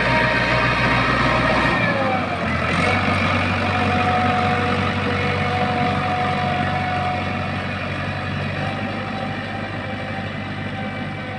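Mahindra 575 DI tractor's four-cylinder diesel engine running. Its note drops about two seconds in, then it runs steadily and slowly fades toward the end.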